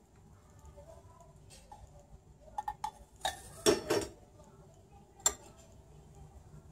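Steel saucepan and wooden spoon knocking and clinking against the gas hob and strainer: a few light clicks about two and a half seconds in, then a louder clatter as the pan is set down on the burner grate, and one more sharp clink a little over a second later.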